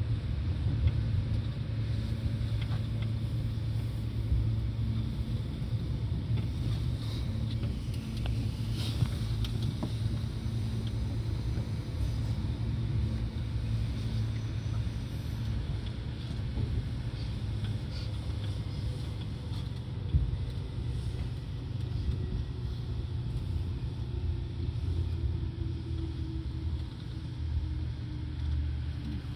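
Seibu 2000 series electric train running at speed: a steady low rumble of wheels and running gear, with faint motor tones that shift slowly in pitch.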